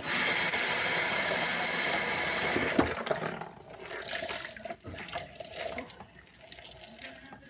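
Sink tap running for about three seconds, then shut off, followed by quieter knocks and rubbing.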